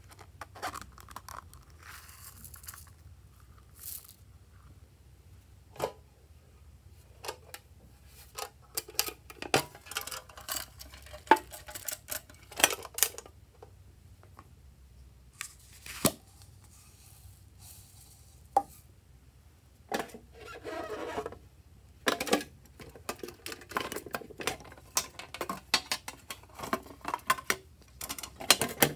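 Hands handling small plastic and tin containers and tipping slime add-ins into a glass baking dish: scattered clicks, taps and rustles, with a longer rattling pour of foam beads about twenty seconds in.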